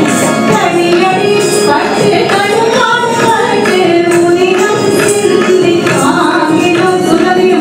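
Carnatic-style song for a dance performance: a female vocalist singing a wavering melodic line, accompanied by keyboard and mridangam drum strokes.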